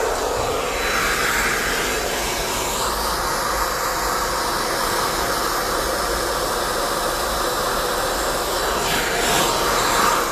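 Hair dryer with a diffuser attachment running steadily, its tone shifting slightly as it is moved around the hair.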